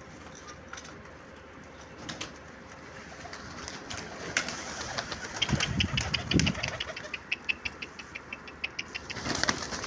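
Chickens making low, soft cooing clucks, followed by a quick run of light ticks about seven seconds in.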